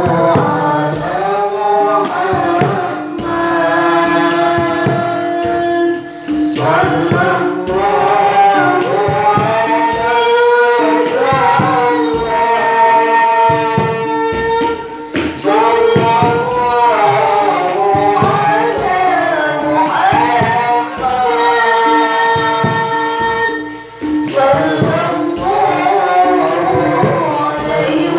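A woman singing a sholawat (Islamic devotional song) in long, ornamented melodic phrases through a microphone, over regular frame-drum (rebana) strokes, with short breaths between phrases.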